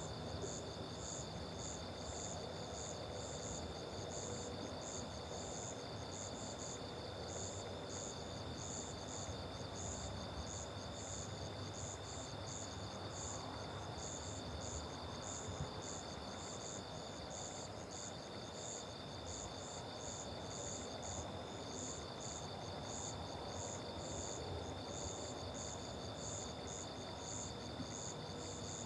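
Night chorus of crickets and other insects: a steady high trill under rhythmic chirping, about two chirps a second, over a faint rural background hum.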